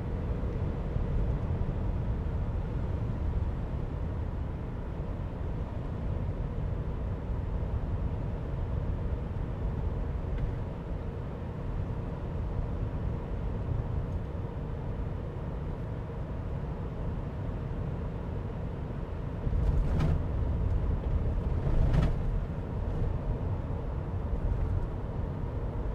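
Interior road noise in a 2022 Ram 3500 HD dually pickup with the 6.7-litre Cummins turbo diesel, driving at road speed: a steady low rumble with a faint steady hum. Near the end it gets a little louder, with two sharp knocks about two seconds apart.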